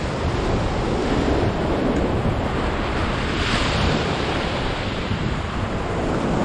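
Rough ocean surf breaking and washing against the boulders of a rock jetty, with one wave crashing in with a splash about three and a half seconds in. Wind buffets the microphone throughout.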